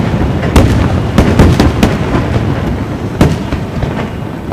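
Aerial fireworks shells bursting: a quick cluster of sharp bangs between about half a second and two seconds in, another about three seconds in, over a continuous low rumble of reports.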